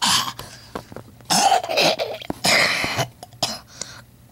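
A child coughing in a fit: about four harsh coughs, the last one weaker, near the end.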